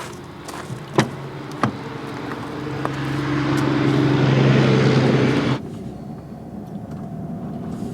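Pickup truck engine pulling away and picking up speed, heard from inside the cab, after two sharp knocks about a second in; the engine sound grows louder, then drops suddenly about five and a half seconds in to a quieter run.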